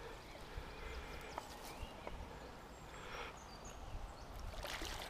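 Quiet lakeside outdoor ambience: a faint steady hush with a couple of brief rustles, about three seconds in and again near the end.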